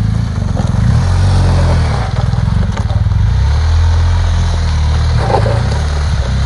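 BMW R 1250 GS's boxer twin engine running at low revs while the bike is manoeuvred on loose gravel, its pitch rising and falling as the throttle is opened and closed.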